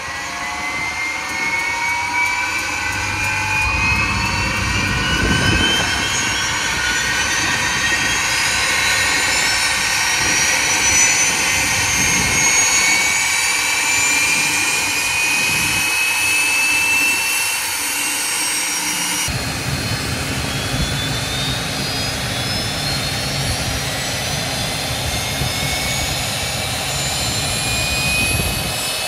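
Cessna Citation 501SP's Pratt & Whitney Canada JT15D turbofan engine spooling up, a whine that climbs slowly and steadily in pitch. About two-thirds of the way through it breaks off suddenly and the rising whine starts again from lower, over a deeper rumble.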